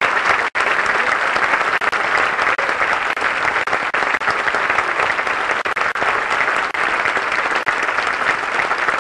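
A large audience applauding, a dense, steady clapping, with a momentary break in the sound about half a second in.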